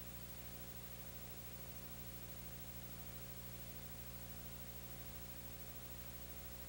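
Steady hiss with a low electrical mains hum and no other sound: an empty soundtrack.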